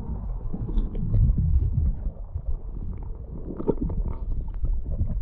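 Muffled underwater sound heard through a submerged camera: low rumbling water movement, swelling about a second in, with scattered small clicks.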